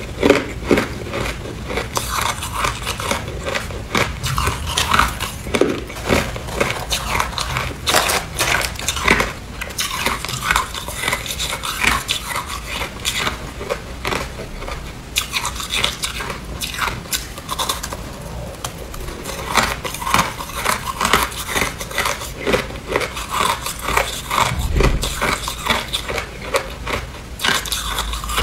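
Hard clear ice being bitten and chewed close to the microphone: a dense run of irregular crunches and crackling cracks.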